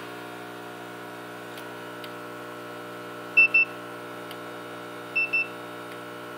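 Handheld infrared thermometer giving short double beeps, twice, as it takes temperature readings off the heated phone glass. A steady electrical hum runs underneath.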